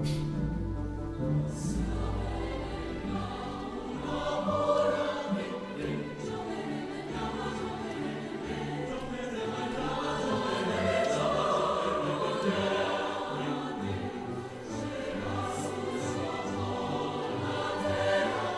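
A choir singing held chords in a seasonal concert piece.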